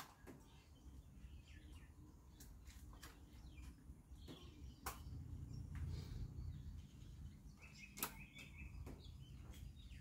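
Near silence with a few faint clicks from the motorcycle's key and switches as the ignition is turned on before starting, over a faint low background rumble, with one short high chirp about eight seconds in.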